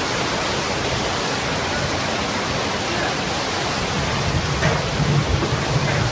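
Steady rushing of floodwater pouring into a flooded room, with a few low thumps near the end.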